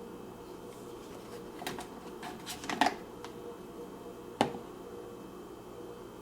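Small clicks and knocks from handling a drip coffee maker and its plastic parts, with a quick cluster of them and then one sharp click about four seconds in, over a steady faint hum.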